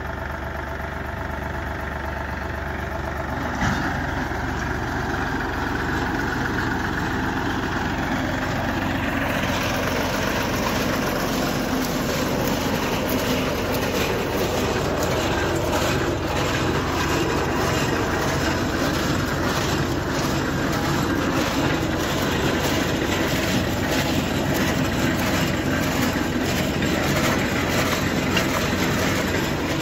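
Tractor engine running steadily as it pulls a three-row sugarcane cutter planter, mixed with the planter's cutting and feeding mechanism clattering. The clatter grows louder and denser from about nine seconds in.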